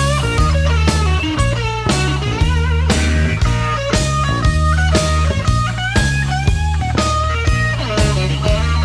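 Blues-rock band playing a shuffle: electric guitar lead with bent notes over bass and drums.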